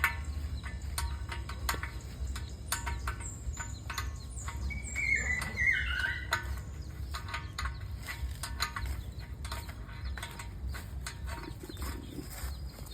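Birds chirping, with a short run of falling chirps about five seconds in, over insect noise and a low steady rumble. Scattered sharp clicks and taps are heard throughout.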